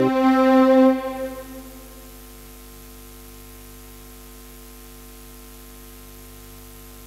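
The last held chord of electronic keyboard music rings on for about a second, then dies away, leaving a steady electrical hum with faint hiss.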